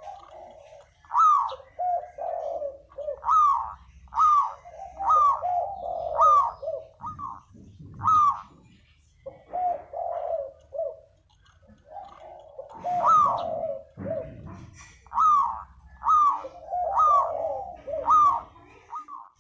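Spotted dove cooing: a long series of short, rising coos in two runs, with a pause of about a second and a half near the middle. These are lure calls.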